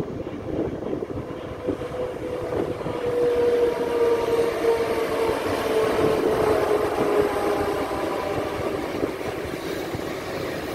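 ČD Cargo class 363 electric locomotive passing with a train of open freight wagons: a rumble of wheels on rail, growing louder toward the middle, with a steady whine that dips slightly in pitch as it goes by.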